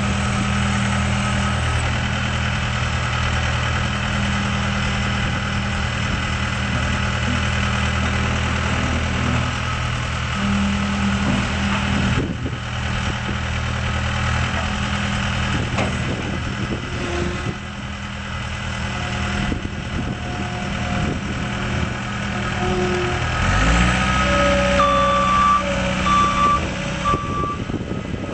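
Turbo-diesel engine of a John Deere 318D skid steer loader running steadily. Near the end the engine speed dips and climbs again, and the backup alarm beeps several times as the machine reverses.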